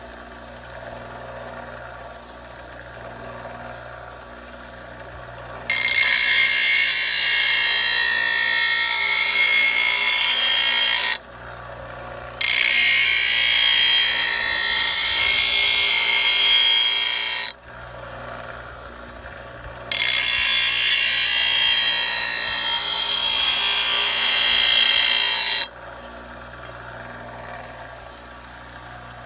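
Power grinder sharpening a steel mower blade: three passes of about five seconds each, the blade edge pressed against the spinning wheel with a loud, harsh, high grinding, and the grinder spinning freely with a steady hum between passes.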